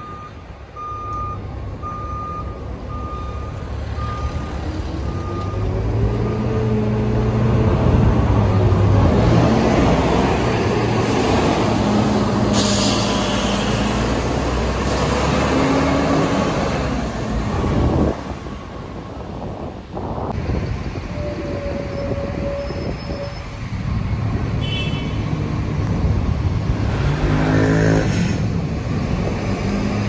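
Volvo B7TL double-decker bus's 7-litre six-cylinder diesel pulling away and accelerating past, its pitch climbing again and again through the gears, with a loud engine whine that bus enthusiasts call a 'hoover'. A short air hiss comes about halfway. A run of evenly spaced beeps sounds in the first few seconds.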